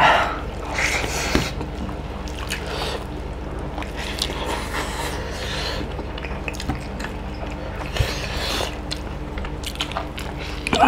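Close-miked eating: chewing and lip-smacking, with wet squishing as hands mix rice and chicken curry.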